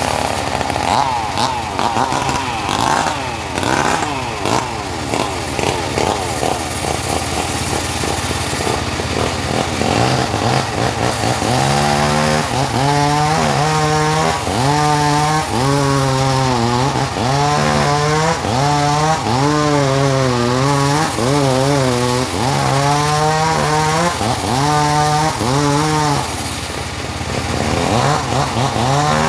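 Portable engine-driven sawmill cutting teak. It runs loud and continuous. From about halfway on, its pitch rises and falls again and again as it works through the cut.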